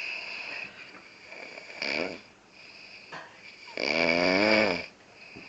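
A woman snoring loudly: a short breath sound about two seconds in, then one long snore about four seconds in whose pitch wavers up and down.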